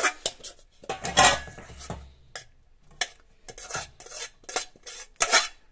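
Steel spoon scraping and clinking against a stainless steel bowl while stirring and scooping cooked rice, in short irregular strokes, with a longer scrape about a second in and a few sharper metal knocks near the end as the bowl is tipped over a pan.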